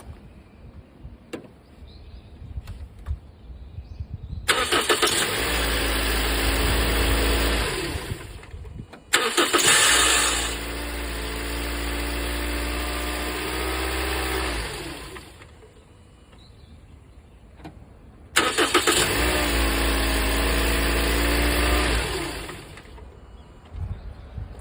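Toyota Noah being started three times: each time the starter motor cranks with an abnormal noise and the engine catches and runs for a few seconds before dying away. The second start has the loudest burst at its beginning.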